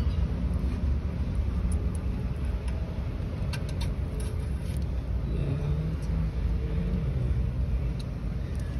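Steady low background rumble, with a few faint light metallic clicks around the middle and again near the end as a steel timing chain is handled and slipped onto the camshaft sprocket of a Toyota 2AZ four-cylinder engine.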